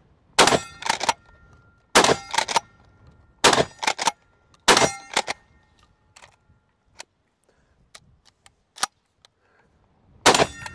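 Rock Island All Gen 12 pump-action 12-gauge shotgun firing 3-inch, 1½-ounce slugs: four shots about a second and a half apart, each followed by the clack of the pump being racked, then a few lighter clicks of the action and a fifth shot near the end.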